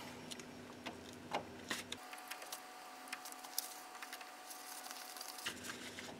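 Faint scattered clicks and light scraping of a Torx key turning out a brake-disc retaining screw from the wheel hub.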